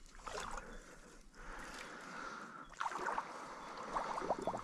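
Water splashing and sloshing as a hooked carp is played toward the bank. About four seconds in, a fishing reel starts clicking in a quick run.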